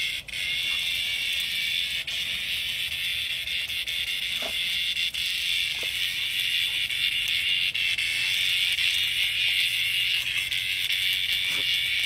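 Cicada buzzing in one steady, unbroken high drone: the distress buzz of a grounded cicada being pawed and nosed by a dog.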